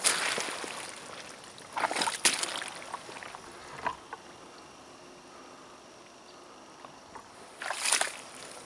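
Rubber waders stepping through swamp mud and shallow water: wet squelching and sloshing steps at the start, about two seconds in and near the end, with a quieter stretch in between.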